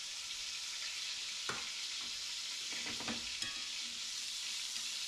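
Chicken fillets frying in hot grease in a cast iron skillet: a steady sizzle, with a few light clicks about a second and a half in and around three seconds in.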